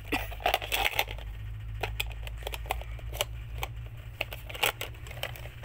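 Irregular clicks and crackles of objects being handled and rustled close to the microphone, over a steady low hum.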